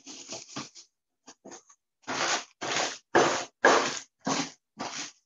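Rolling pin crushing Oreo cookies in a plastic zip-top bag on a stainless steel table, a crunching, crinkling noise with each stroke. A few short crunches, a brief pause, then six steady strokes at about two a second.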